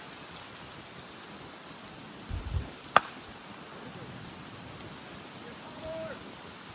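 Wind noise on the microphone, with a brief low gust rumble, then a single sharp crack of a slowpitch softball bat hitting the ball about three seconds in.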